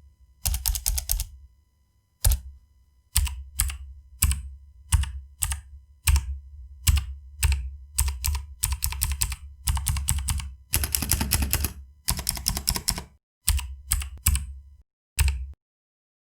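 Razer Ornata Chroma membrane keyboard being typed on, each key giving a click from the small metal plate over its rubber dome. The keystrokes come in quick runs broken by short pauses, and the typing stops near the end.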